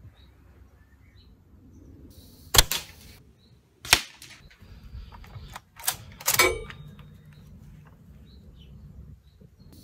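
A sharp shot from an APS APM50 CO2-powered bolt-action airsoft sniper rifle, then three more sharp cracks and clacks over the next four seconds, the last with a short ringing tail.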